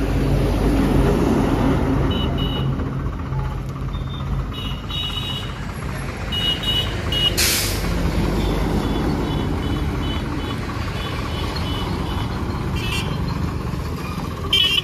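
Diesel tractor engine running as it hauls a loaded trolley, with road traffic and a truck passing. There is a brief hiss about halfway through.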